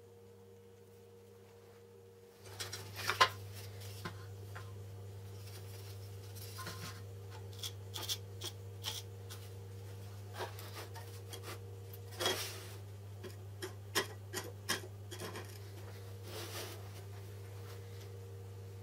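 Hands handling a small metal and wood drill-bit sharpening jig: scattered light clicks, taps and rubbing, the sharpest click about three seconds in, over a low steady hum.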